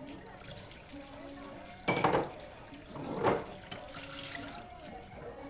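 Water running from a kitchen tap into a sink while dishes are washed by hand, with two louder splashes about two and three seconds in.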